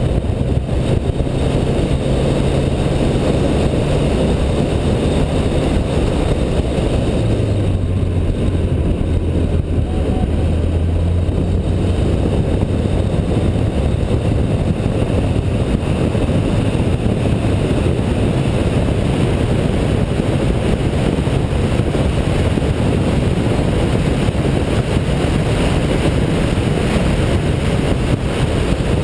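Car being driven hard on a race circuit: a steady engine drone under heavy wind and road rush. The engine note drops about seven seconds in, stays lower for a few seconds, then rises again.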